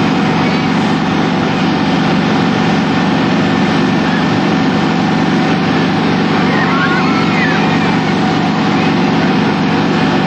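Fire trucks running with their pumps engaged and water streams spraying, giving a loud, steady roar with a constant hum underneath. A few faint gliding squeals rise out of it about seven seconds in.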